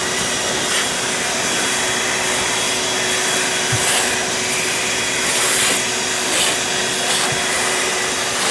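Electric vacuum used to suck up bees during a hive cutout, running steadily: a constant rushing noise with a steady motor whine.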